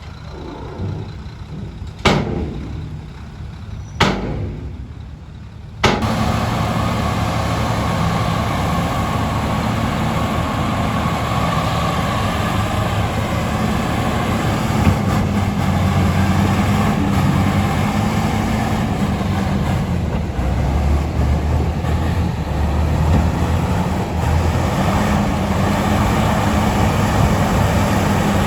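Bulldozer diesel engine working: quieter for the first few seconds with sharp clicks about two and four seconds in, then a sudden jump, about six seconds in, to a loud, steady heavy engine sound that runs on.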